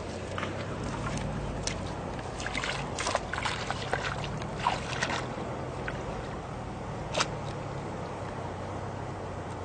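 Water sloshing and trickling, with scattered short splashes and clicks over a low steady hum.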